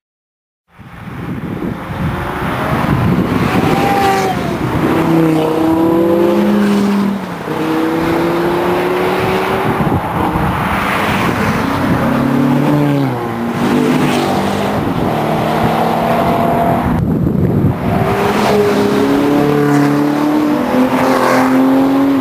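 Sports cars driving past one after another on a mountain road, engines pulling hard with revs climbing and dropping back at each upshift. A Porsche 911's flat-six and a Ferrari California's V8 are among them.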